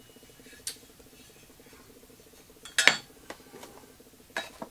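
Metal kit parts and bagged hardware clinking as they are picked up and set down: a few sharp separate clinks, the loudest about three seconds in, over a faint steady hum.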